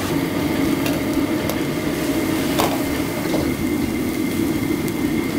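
Restaurant kitchen noise: a steady low roar of kitchen equipment, with a few sharp clinks scattered through it.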